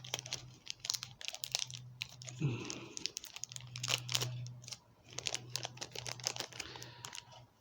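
Scattered light clicks, taps and crinkling of plastic packaging as parts of a boxed model airliner are unpacked and handled, over a faint steady low hum.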